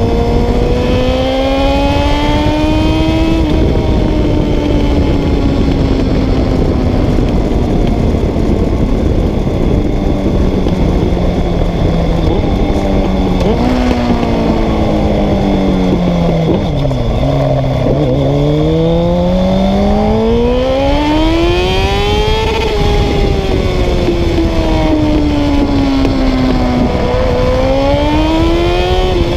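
Honda CBR 600 F3's inline-four engine under way at speed, its pitch climbing in the first few seconds, sinking slowly to a low point, then climbing sharply again about 18 s in and once more near the end. Heavy wind and road rush sits under it.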